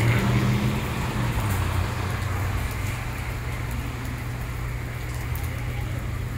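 Heavy rain falling on a parking lot's asphalt, a steady hiss. Under it, a vehicle's low engine hum fades away over the first second or so.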